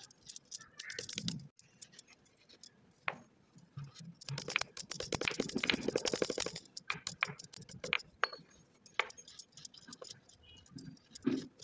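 Chalk being crushed and ground into powder under a block rubbed over a hard surface: crisp crunching and crackling, loudest in a rapid run about halfway through.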